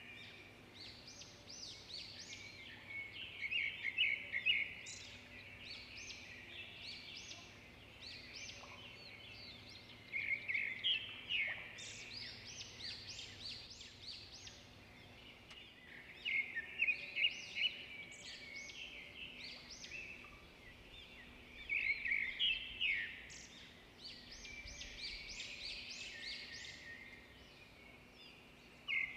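Birds chirping in repeated bursts of quick high notes every few seconds, over a faint steady low hum.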